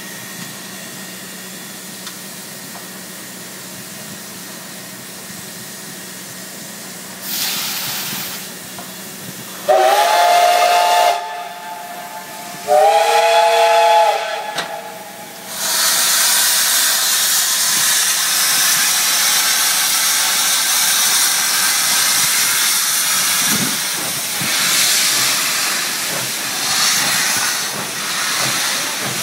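Soviet L-class steam locomotive: a short hiss of steam about seven seconds in, then two blasts of its steam whistle, each a chord of several tones lasting about a second and a half. A loud, steady hiss of steam venting low around the cylinders and wheels follows as the locomotive gets under way.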